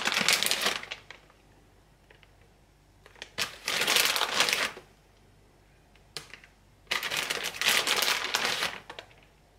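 Plastic bag of shredded cheese crinkling as the cheese is shaken out of it, in three bursts of a second or two each.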